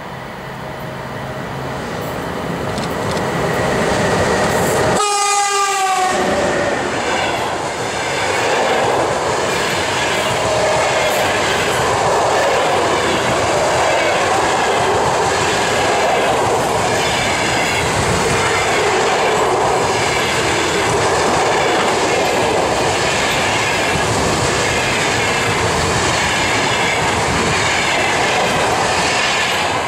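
ЭП1М electric locomotive with a passenger train approaching and growing louder, then sounding a short horn blast about five seconds in whose pitch drops sharply as it passes. The passenger coaches then roll by with a steady, rhythmic clickety-clack of wheels over the rail joints.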